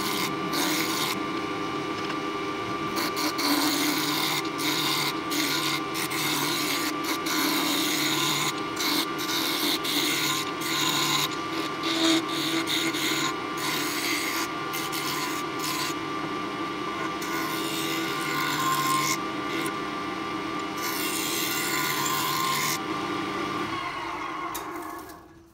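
Wood lathe running while a turning tool cuts into a spinning hardwood chisel-handle blank. The tool gives a steady scraping over the motor's hum, with irregular heavier bites, and everything stops near the end.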